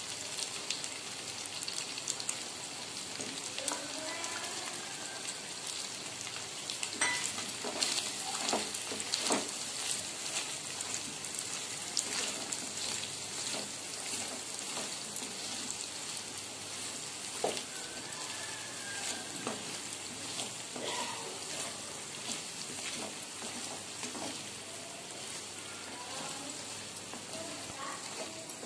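Goat mutton pieces sizzling in hot oil in a frying pan, a steady hiss, while a wooden spatula stirs red chilli powder through them, knocking and scraping against the pan now and then.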